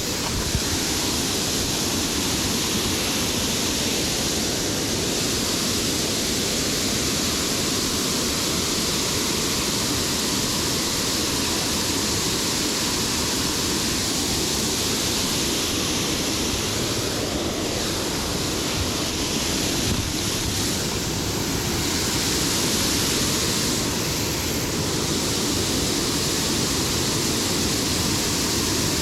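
Steady, loud rush of moving water, an even hiss with no break.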